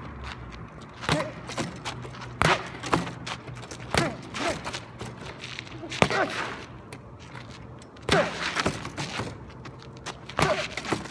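Vocal percussion into a handheld microphone: sharp mouth-made hits at an uneven pace of about one or two a second, some trailing into short sliding vocal sounds.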